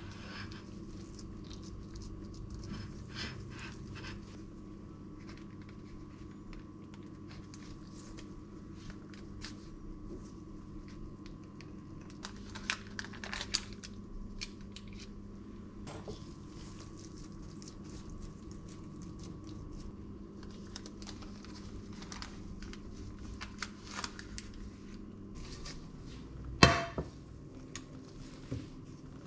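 Gloved hands working ground beef in a burger-patty mould and setting the patties on paper squares on a plate: soft squelching, paper rustling and light clicks and taps of mould and plate, over a steady low hum. A sharp knock about three seconds before the end is the loudest sound.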